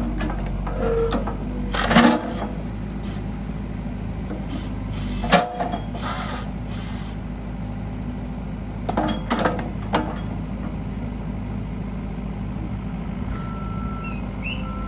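Excavator's diesel engine running steadily, with hydraulic hissing and several sharp metal clanks as the bucket grabs a lawn mower. A few short beeps near the end.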